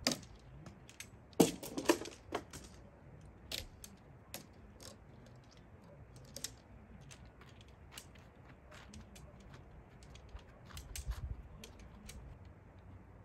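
Metal tent poles clicking and knocking as their sections are fitted together, in an irregular run of sharp clicks, the loudest few coming close together about one and a half to two seconds in.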